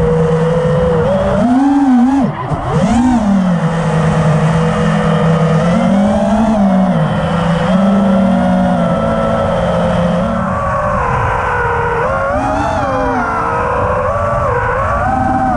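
Four brushless motors of a 5-inch FPV quadcopter (T-Motor F60 V3 2350kv, 5-inch props) whining, their pitch sweeping up and down with the throttle. There is a quick throttle drop and punch about two seconds in, then a steadier cruise, and the pitch climbs and wavers near the end.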